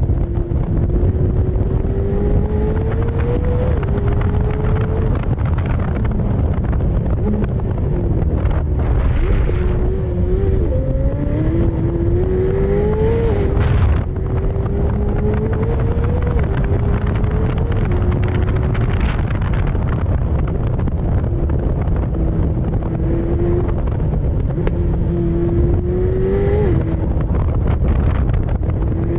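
McLaren Senna's twin-turbo V8 pulling hard on track. Its pitch climbs and then drops sharply several times as it shifts up through the gears, over a constant heavy low rumble.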